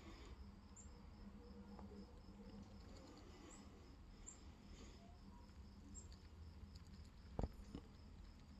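Near silence: faint outdoor ambience with a steady insect trill and a few short high chirps. About seven seconds in comes a single sharp click, the loudest sound, followed by a couple of fainter ticks.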